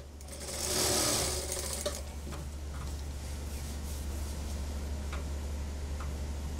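Industrial lockstitch sewing machine stitching a seam through suit fabric, louder for about a second near the start, then running on steadily with a constant low hum.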